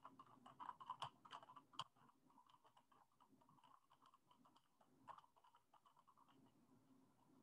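Faint typing on a computer keyboard: quick key clicks, densest in the first two seconds, then sparser and softer.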